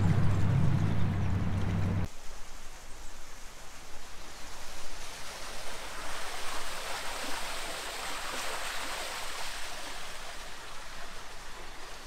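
A narrowboat's engine running steadily, a low hum that cuts off about two seconds in. After that comes a steady rush of water at a canal lock.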